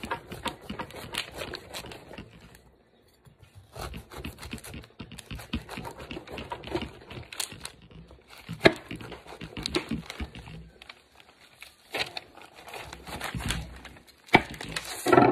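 Large kitchen knife cutting through a ripe jackfruit's thick, knobbly rind: a rapid run of short clicks, with a brief pause about three seconds in, a few sharper clicks later on and a louder burst near the end.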